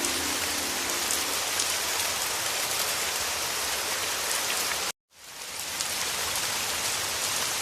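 Heavy rain falling steadily as an even hiss of drops. About five seconds in it cuts out to silence for a moment, then fades back in.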